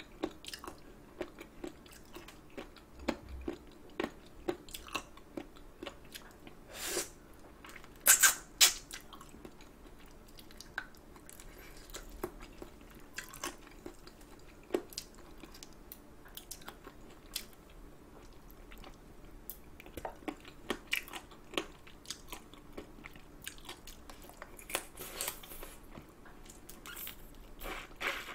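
Wet chewing and sucking on braised spicy chicken feet, a steady run of small irregular mouth clicks and smacks. Two sharper, louder bites about eight seconds in, and a few more near the end.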